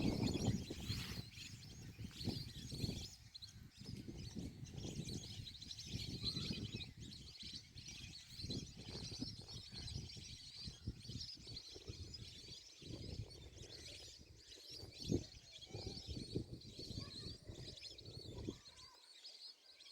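Many small birds chirping and twittering together in a busy, continuous chorus, over an uneven low rumble that fades out shortly before the end.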